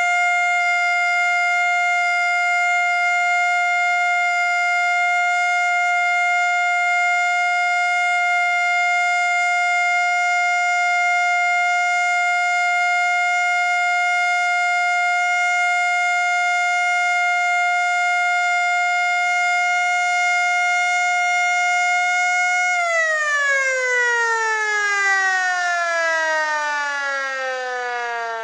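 Federal Signal Model L electromechanical fire siren sounding a steady single-pitch tone on its alert test. About 23 seconds in it shuts off and winds down, its pitch falling steadily as the rotor coasts to a stop. The owner says this siren is sounding sick.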